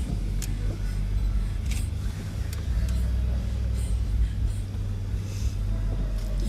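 Truck engine running steadily at low revs, with a few faint clicks and rustles over it.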